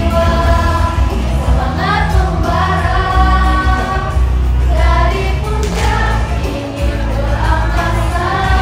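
A group of children singing a song together over a recorded music backing track with a steady bass line.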